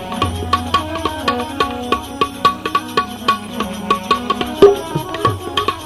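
Instrumental interlude of a Gujarati bhajan: hand drums play a quick, busy rhythm over sustained melodic tones, with one louder stroke about three-quarters of the way in.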